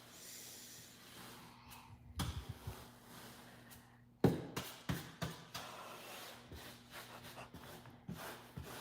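Toys and kinetic sand being handled in play: a scattering of soft knocks and taps, the loudest about four seconds in and followed by a few more in quick succession.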